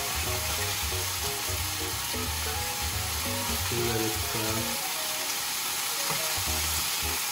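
Chicken breast pieces sizzling steadily in hot oil in a frying pan as they are stirred and turned with a wooden spatula.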